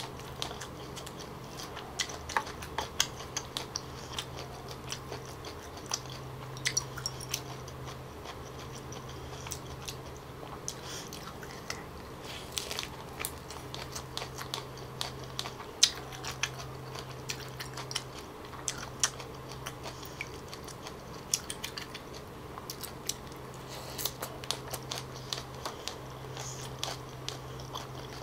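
Close-miked chewing and crunching of a leafy wrap of fresh lettuce and greens, with many irregular crisp clicks and bites, over a steady low hum.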